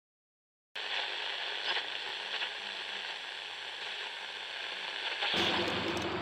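A steady crackling hiss starts suddenly just under a second in. About five seconds in, low sounds and steady tones join it.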